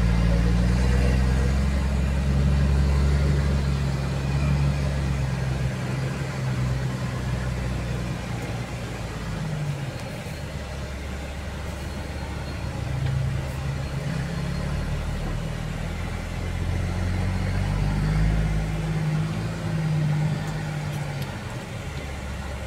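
Heavy vehicle's engine heard from inside its cab, running low and steady while creeping in stop-and-go traffic. Its pitch rises and falls several times as it pulls forward and eases off.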